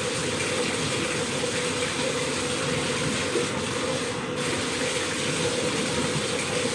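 Water running steadily into a bathtub.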